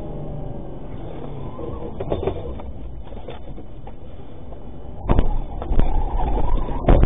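Inside the cab of a moving cash-in-transit vehicle: steady engine and road rumble with a few light knocks. From about five seconds in comes a much louder stretch of sharp bangs and rattles with a wavering squeal.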